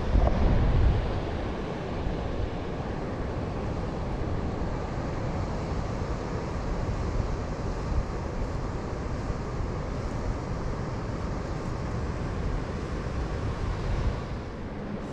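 Wind buffeting the camera's microphone, gustiest in the first second, over a steady outdoor rushing hiss.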